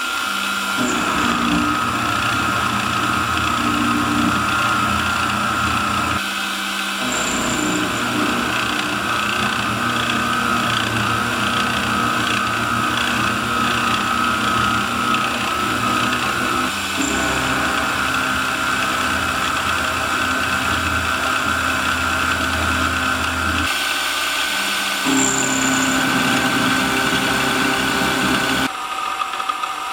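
Converted Sieg SX2.7 CNC mill cutting with a 6 mm four-flute carbide end mill, a full-width cut 1 mm deep, with the spindle at about 1800 rpm. The steady whine of the spindle and cut sits over lower stepper-driven tones that change pitch several times as the table moves.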